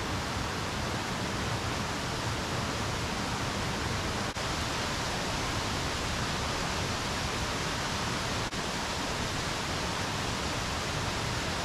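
Steady rushing of a stream, an even noise with no let-up, briefly broken about four and eight seconds in.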